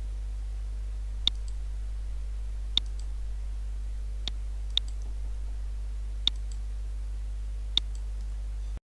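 Computer mouse clicking, six sharp left-clicks roughly every one and a half seconds as points are set one by one, over a steady low hum. The sound cuts out just before the end.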